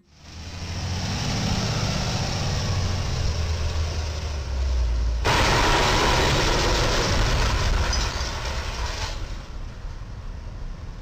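Low rumble of a truck engine and traffic. About five seconds in comes a sudden loud crash that runs on for about four seconds: the roof of a Penske rental box truck strikes the steel overheight crash beam and the low railroad bridge and is torn as the truck drives through.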